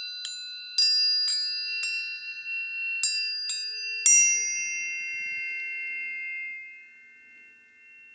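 Planetary tuning forks struck one after another, about seven sharp metallic strikes in the first four seconds, each leaving a pure high ringing tone. The tones overlap into a steady chord that fades to a faint ring near the end.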